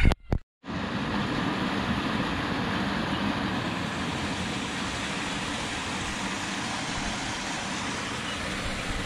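Steady rushing noise of water flowing through a stone-and-concrete irrigation channel, with a faint low hum underneath.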